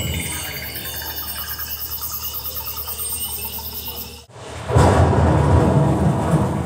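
Dolby Atmos sound-effects demo played through a KEF XIO 5.1.2 soundbar. High insect-like chirping pulses rapidly for about four seconds and cuts off suddenly, then a loud, deep thunder-like rumble follows.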